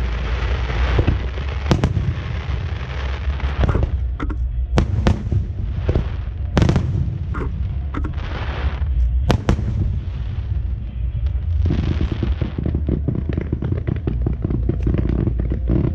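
Fireworks display: repeated sharp bangs of bursting shells, with stretches of dense hissing and crackling between them over a steady low rumble.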